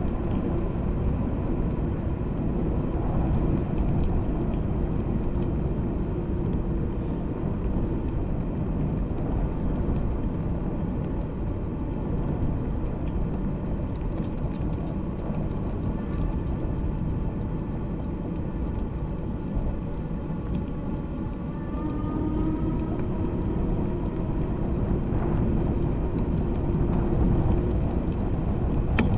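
Steady low rumble of a wheeled ride rolling along a paved path, with a faint whine that rises in pitch a little past the middle.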